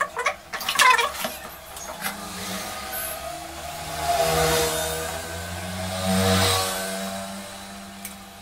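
Clattering knocks and clicks as a CRT TV circuit board is handled and turned over on the bench, followed by a low humming drone that swells twice and then fades.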